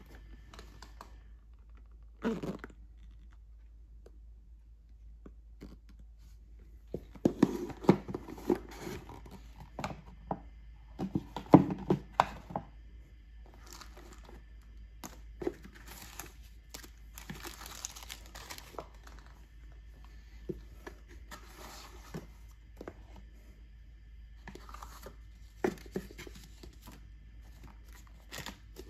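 Hands handling a cardboard pistol box and its contents: paper and plastic wrapping rustling and crinkling in irregular bursts, with a few light knocks as the box and items are picked up and set down.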